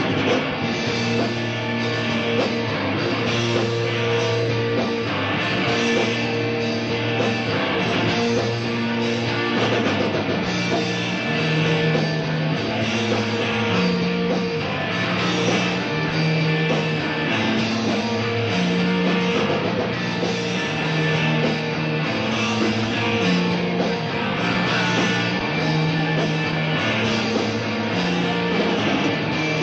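A post-hardcore rock band playing live on guitars, bass and drum kit, with the bass line stepping between notes. It is recorded on a two-channel cassette deck, so the sound is dull at the top end.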